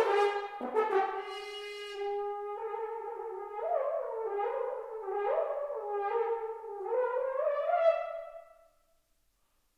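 Solo French horn playing contemporary music: a loud accented note, then a held note with a wavering, swelling line rising above it, before the sound dies away near the end.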